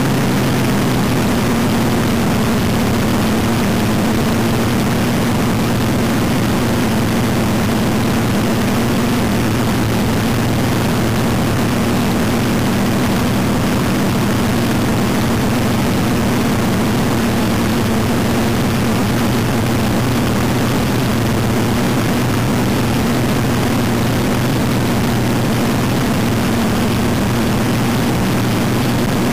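Front-engine dragster's engine idling steadily through open zoomie headers, heard up close from on board, a loud even rumble that holds one pitch.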